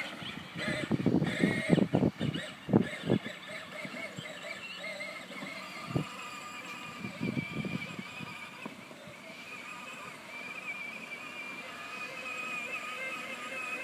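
Battery-powered John Deere ride-on toy tractor driving across grass, its electric motor and gearbox giving a steady, slightly wavering whine. A few thumps come in the first three seconds and once more about six seconds in.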